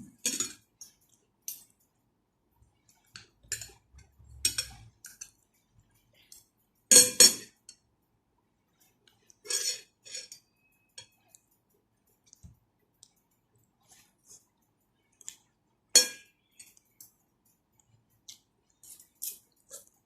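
Cutlery clinking and scraping against a bowl during a meal, in scattered short knocks at irregular intervals, the loudest about seven and sixteen seconds in.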